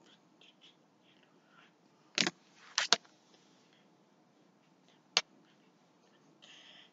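Hands slapping together during signing: four sharp slaps, one about two seconds in, two close together just before the three-second mark, and one a little past five seconds, with a short hiss near the end.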